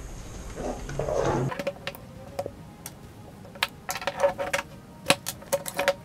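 Sharp metallic clicks and clacks from an APS all-metal M4-style gel blaster being handled and reassembled, coming thickest in the second half. A short burst of rustling handling noise comes about a second in.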